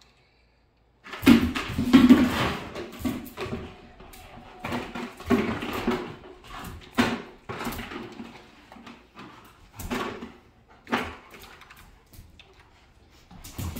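A yellow Labrador biting and tugging at a cracked plastic bucket, starting about a second in: the plastic crackling and knocking, claws scrabbling on a hardwood floor, and the dog's growls in between.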